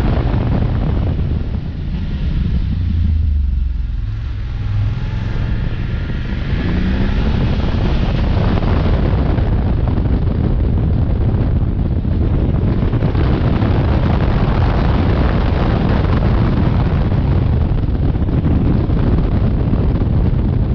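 Wind buffeting the microphone on a moving BMW F850GS motorcycle, a steady rushing rumble. Under it the bike's parallel-twin engine is heard, plainest when the wind eases around three to five seconds in, its pitch rising around six seconds in.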